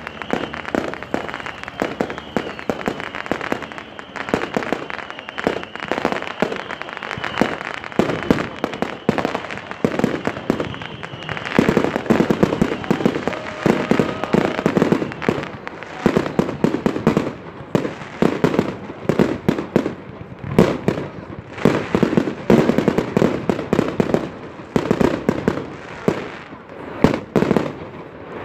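Fireworks display: rapid, overlapping bangs and crackles from aerial shells and rockets, getting denser and louder from about twelve seconds in.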